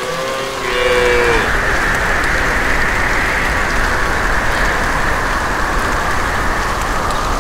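Steady hiss of rain, with a cow mooing once in the first second and a half.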